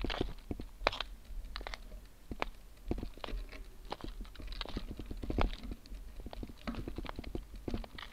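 A gravel bike rattling and knocking as it rolls over rough, cracked granite and loose grit: irregular sharp clicks and clunks from the bike and its saddle-mounted camera, over a low rumble of the tyres on rock.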